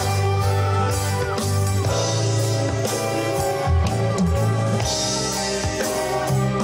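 Live rock band playing a passage with electric bass, electric guitars and a drum kit, steady bass notes under ringing cymbals.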